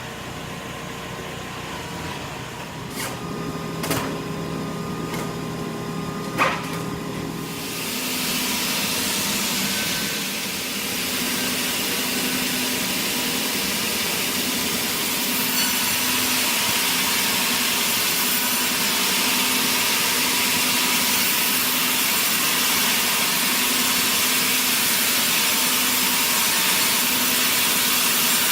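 Sawmill machinery running, with a few sharp knocks, then from about eight seconds in a saw cutting steadily through wood, a dense hiss over the machine's hum.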